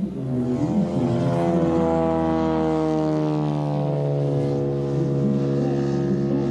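Engine and propeller of a giant-scale RC model aircraft flying. The engine note falls slightly over the first couple of seconds, then holds steady.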